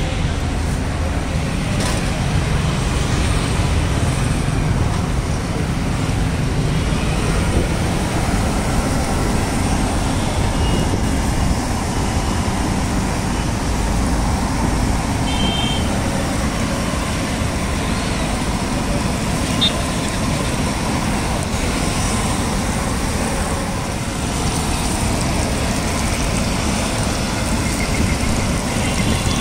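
Steady roadside traffic noise, with a couple of brief high tones around the middle.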